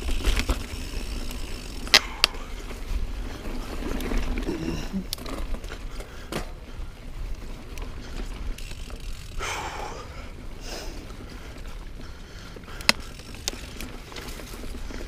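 Niner Jet 9 RDO mountain bike ridden over dirt singletrack: tyres rolling on the trail with the bike rattling and a few sharp clicks, loudest about two seconds in. A whoosh swells about ten seconds in, and there is a low wind rumble on the microphone.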